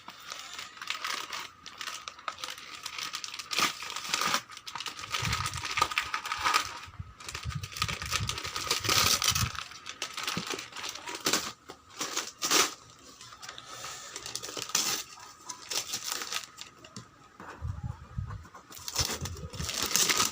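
Packaging being crinkled and torn open by hand: irregular rustling with sharp rips and a few handling thumps.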